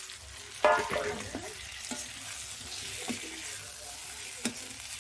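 Cut rolls being stirred into hot, oily tomato-onion masala in a kadhai: a steady sizzle of frying, with a spatula scraping and clanking against the pan. The loudest scrape comes about a second in, and there is a sharp knock near the end.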